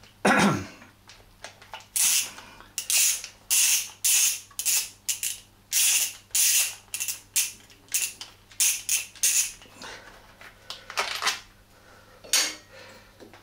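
Hand ratchet clicking in quick repeated strokes, about two or three a second, as cover bolts on a motorcycle are undone; the strokes stop near the end.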